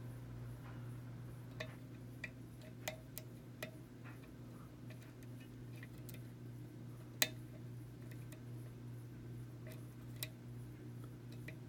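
Faint, irregular metallic clicks and ticks from a lock pick and tension wrench working the pins of a challenge pin-tumbler lock during counter-rotation out of a false set, with the sharpest click about seven seconds in.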